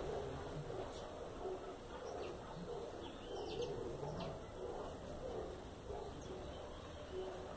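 Birds calling: scattered short, thin, high chirps and rising squeaks, over softer low-pitched calls.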